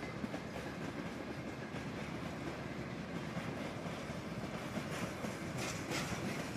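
Railway tank cars of a freight train rolling past, with a steady rumble and clatter of steel wheels on the rails. A brief louder, hissier stretch comes near the end.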